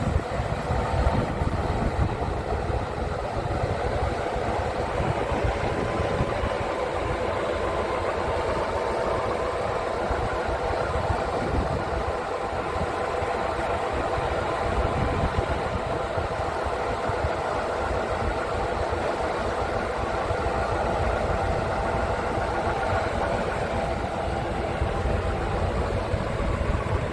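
Scania R truck's diesel engine running steadily to drive its knuckle-boom loader crane, with a steady hydraulic whine as the boom is moved.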